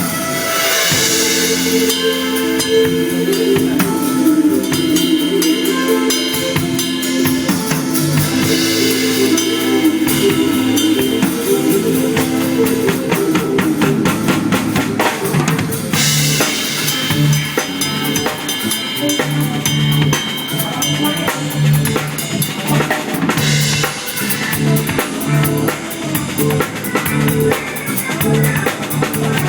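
Drum kit played over an instrumental track with held, sustained tones: kick drum, snare and rimshots in a busy steady groove, with a cymbal crash about every seven to eight seconds.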